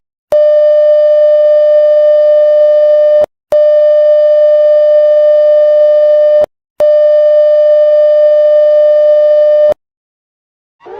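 Emergency alert tone: three long, steady, buzzy beeps of about three seconds each on one pitch, separated by short breaks.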